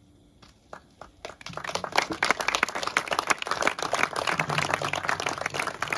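Audience applause: a few scattered claps about half a second in, building to steady clapping from many hands a second later.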